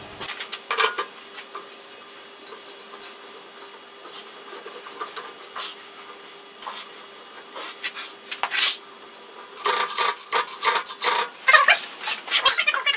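Metal shaper's drive turned over by hand at the pulley: irregular metallic clicks, knocks and rubbing from the belt, pulley and mechanism, turning into a fast, even clicking near the end.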